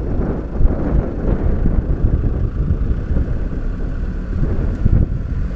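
Open-sided safari vehicle driving across grassland: engine rumble mixed with wind buffeting the microphone, an uneven low rumbling noise with no clear engine tone.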